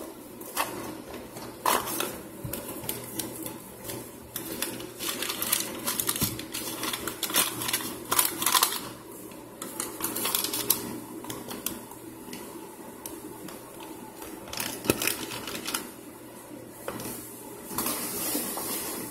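Powdered starch in a cast-iron skillet being pressed and smoothed flat by hand, giving irregular crunching, scraping and tapping sounds.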